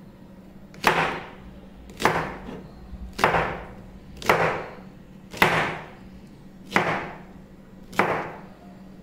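Kitchen knife chopping a bundle of okra pods into short pieces on a plastic cutting board: seven crisp cuts at an even pace, about one a second.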